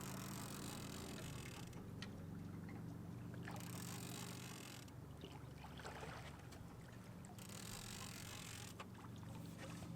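Steady low hum of a boat motor running, with several stretches of high hiss that start and stop abruptly and a single sharp click about two seconds in.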